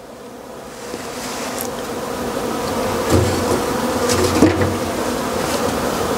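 Hand-cranked four-frame stainless-steel honey extractor spinning up, its steady whir growing louder as the basket turns faster, with a couple of light knocks partway through.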